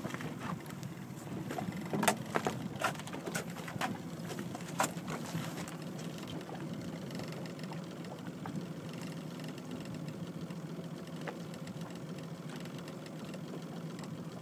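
Steady low rumble of a boat idling on choppy water, with a run of sharp knocks and clicks in the first five seconds.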